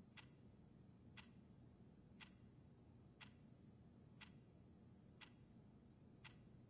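Clock ticking faintly and steadily, one tick a second, over low room tone.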